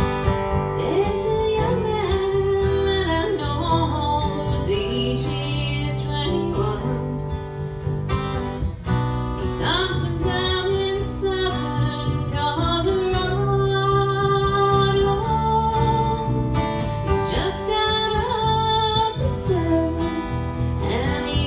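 A woman singing long held notes over a strummed acoustic guitar, with low bass notes underneath.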